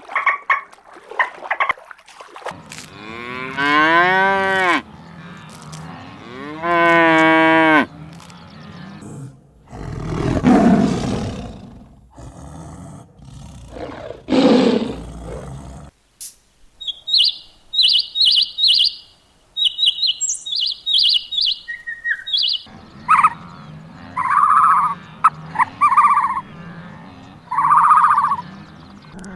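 A run of different farm-animal calls one after another: two long calls that rise and fall in pitch, then two low cattle moos, a quick series of high chirps, and four shorter calls near the end.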